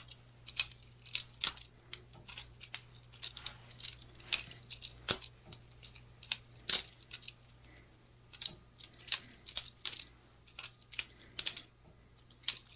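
Boker Plus balisong butterfly knife being flipped: irregular sharp metallic clicks and clacks as the handles and blade swing round and knock together, a few a second.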